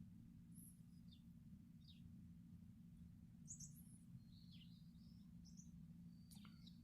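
Near silence: a faint steady low hum with a few faint, brief high chirps scattered through.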